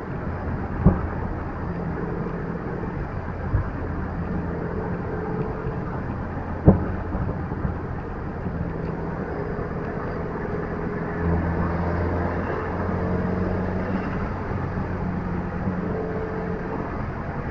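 A car being driven: steady engine and road noise, with a few sharp knocks about a second, three and a half seconds and nearly seven seconds in.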